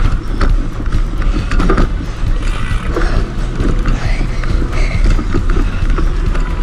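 Mountain bike ridden over a bumpy trail, rattling with many quick clicks and knocks over a steady low rumble.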